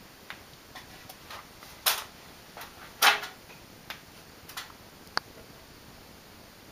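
Scattered light clicks and knocks from handling, with two louder knocks about two and three seconds in and a sharp click a little after five seconds.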